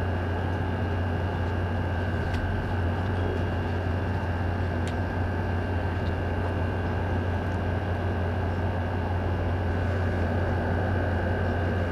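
Steady background hum with hiss and a faint high whine. It does not change, like a motor or appliance running in the room. A couple of faint ticks come in the first half.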